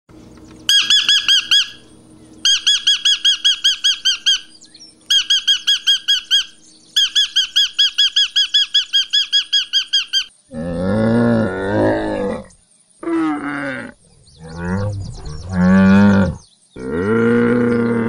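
Female eclectus parrot calling in four bouts of fast, evenly repeated high squawks, about eight a second. From about halfway through, a camel's low calls take over: four long calls that bend in pitch, with short gaps between them.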